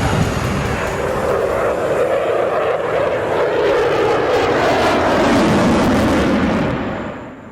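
Aircraft flying past with a loud engine roar whose pitch drops as it passes, then falling away near the end.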